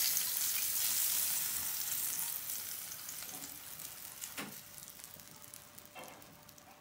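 Hot oil with chili flakes and dried mint sizzling as it is poured from a frying pan over yogurt. The sizzle is loudest at first and dies away over the last few seconds. A light tap comes about four and a half seconds in.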